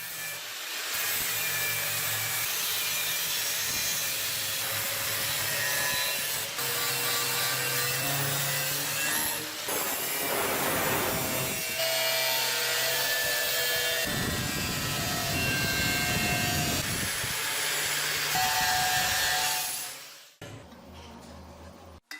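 Steady rasping of a tool working wood, running continuously and stopping abruptly about twenty seconds in.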